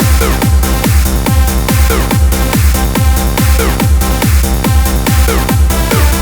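Electronic dance music with a steady, thumping kick-drum beat about twice a second and synth layers, with no vocals.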